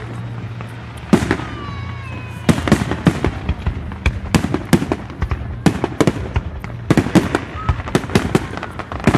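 Fireworks going off: a rapid, irregular barrage of sharp bangs and crackles, with a short whistling tone about a second in.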